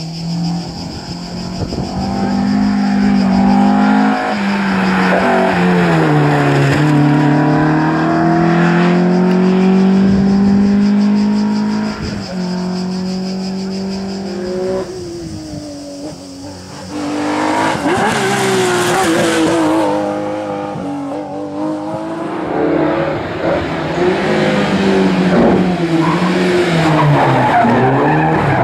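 Historic rally car engines being driven hard, the engine note climbing and dropping again and again as the cars accelerate, shift and brake. There is a loud burst of tyre noise about eighteen seconds in.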